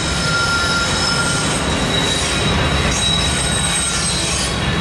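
Norfolk Southern freight train's diesel locomotives and cars rolling past close by, with a steady high squeal from the wheels and brakes over the rumble. The train has been forced into an emergency brake application.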